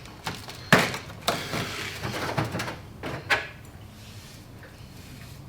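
Metal turbocharger parts being handled during disassembly: four sharp knocks and clinks over the first three and a half seconds, with some scraping between them.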